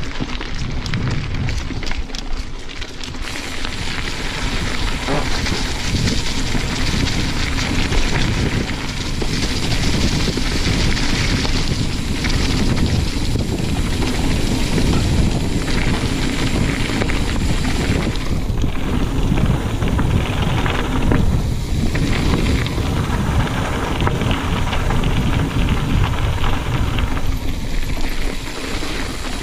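Mountain bike descending a dirt and gravel trail at speed: tyres crunching over loose stones and the bike rattling over bumps, with steady wind noise on the GoPro's microphone.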